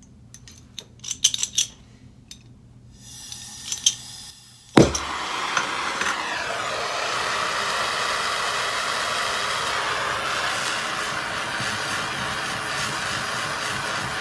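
A few light metal clinks, then gas starting to hiss; about five seconds in a jeweler's soldering torch lights with a sharp pop and burns with a steady loud hiss, heating copper to flow silver sweat solder.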